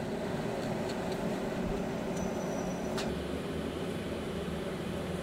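Steady machine hum, with a few light clicks of small metal parts being handled and one sharper click about three seconds in.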